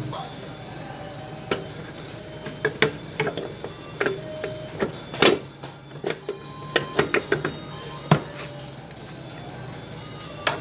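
Irregular clicks and knocks as a Suzuki Nex scooter's CVT cover is fitted onto the crankcase and its bolts and tools are handled, with music in the background.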